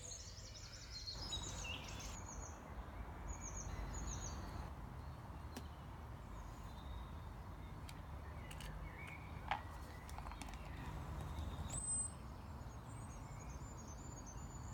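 Small birds chirping outdoors: a run of short, high chirps a couple of seconds in and a sharper high call near the end, over a low, steady background rumble.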